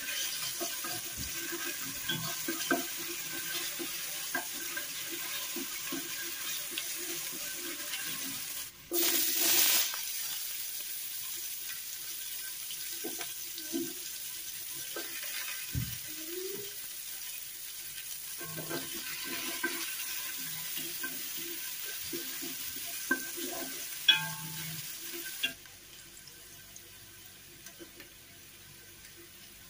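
Minced garlic and whole spices frying in a pot with a steady sizzle, stirred with a wooden spoon that scrapes and knocks the pot now and then. About nine seconds in, the sizzle flares louder for about a second. Near the end it drops quieter.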